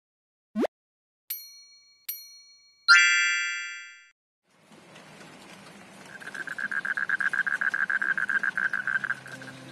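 Title-card sound effects: a quick rising swoop, two bright dings, then a louder chime that rings out. Then rain falling on garden plants, with a rapidly pulsing high animal call through the middle.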